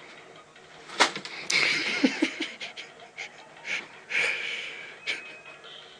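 A Newfoundland puppy's sniffs and huffing breaths in short bursts, after a sharp click about a second in.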